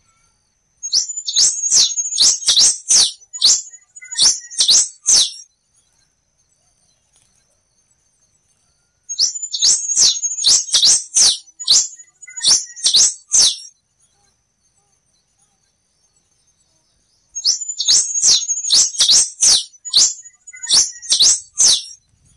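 A quem-te-vestiu (black-and-rufous warbling finch) singing three songs, each a fast series of sharp, high, sweeping notes lasting about four to five seconds, with pauses of three to four seconds between them. A faint steady high tone sounds underneath.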